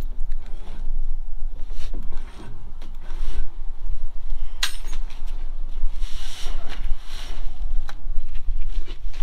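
Handling of a side dump trailer's tarp and its steel roll-up tube: scattered clicks and knocks, a sharp click about four and a half seconds in, and a rubbing rustle around six to seven seconds in, over a steady low rumble.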